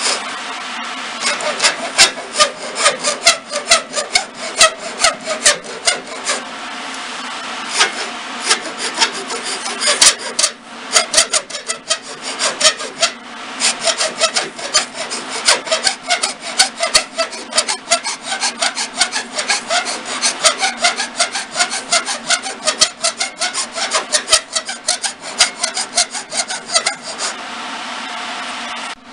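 Round wood file rasping along the spiral groove of a twisted wooden spindle in quick back-and-forth strokes, about three a second, to finish the groove. The strokes stop near the end. A steady machine hum runs underneath.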